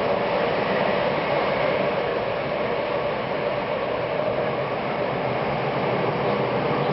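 Tokyo Metro 10000 series subway train running through a tunnel, heard from inside the front car as a steady, even noise of wheels on rail and rushing air.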